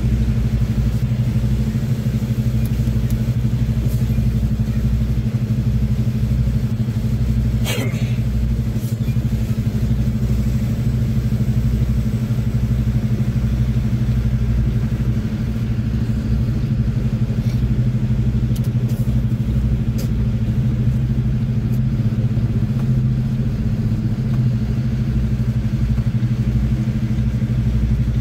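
Semi-truck diesel engine running with a steady low drone, with a single brief click about eight seconds in.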